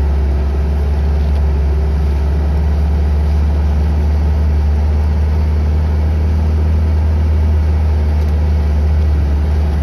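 Suzuki Samurai's four-cylinder engine running steadily as it drives slowly along a dirt track, heard from inside the cab as a low, even drone.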